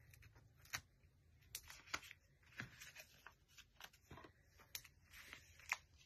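Faint, scattered light ticks and brief rustles of small cardstock pieces being handled, with foam adhesive dimensionals being put on a paper flower.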